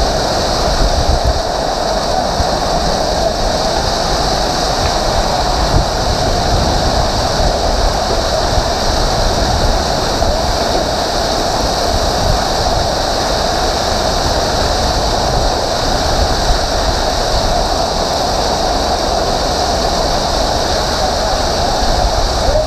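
Heavy hail and rain pelting down in a loud, dense, steady roar.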